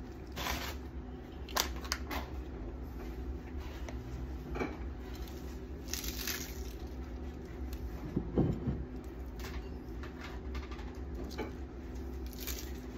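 Hands peeling and tearing lettuce leaves over a plate: scattered light rustles and crackles, with a soft thump about eight seconds in.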